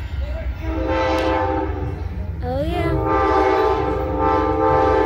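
Approaching Amtrak Coast Starlight locomotive's multi-chime air horn sounding two long blasts as it nears the station, the second starting with an upward slide in pitch before settling into a steady chord.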